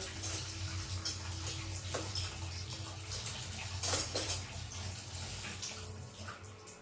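Water running and splashing in a kitchen sink, with a few short knocks about one, two and four seconds in. It fades towards the end.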